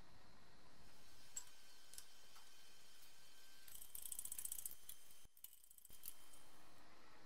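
A few isolated light ticks, then about a second of rapid ratchet-like clicking from a hand-worked workshop mechanism.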